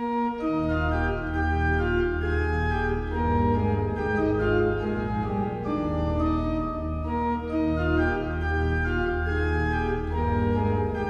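Opening theme music on organ: full sustained chords over a deep bass, the chords changing every second or so.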